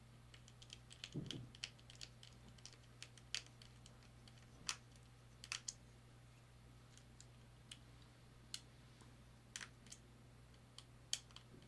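Faint, irregular light clicks and ticks of small tools and parts handled on an iPhone 6 during reassembly, such as a precision screwdriver setting tiny screws, over a steady low hum.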